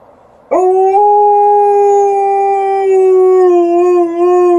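An Alaskan Malamute gives one long, steady howl, beginning about half a second in and wavering slightly near the end. It is her answer to a siren outside.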